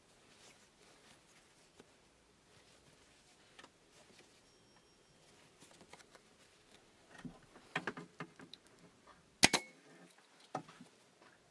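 A scattering of light clicks and knocks, with a cluster of them past the middle, then one sharp, loud double snap about nine and a half seconds in, followed by a couple more clicks.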